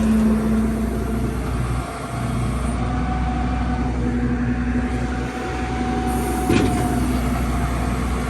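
Rollback tow truck's engine running steadily while its hydraulic bed is put away, with a brief knock about six and a half seconds in.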